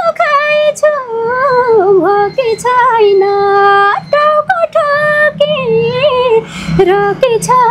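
A female voice singing a Nepali Teej song: long held notes with sliding, ornamented turns between them, broken by short breaths.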